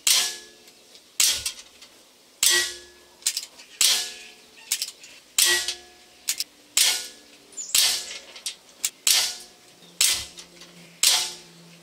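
About ten pellets striking a steel pellet-trap target in quick succession, fired from a Weihrauch HW45 .177 air pistol. Each is a sharp metallic crack that rings briefly, spaced a second or so apart, with a few lighter ticks in between.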